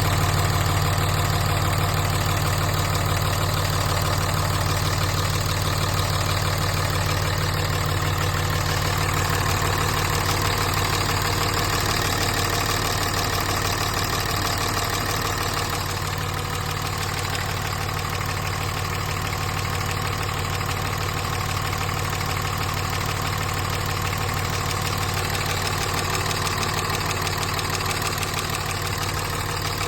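5.9 Cummins turbo-diesel inline-six idling steadily with its diesel clatter. The owner records it for a noise that appeared after the CP3 high-pressure fuel pump was replaced because of fuel in the oil.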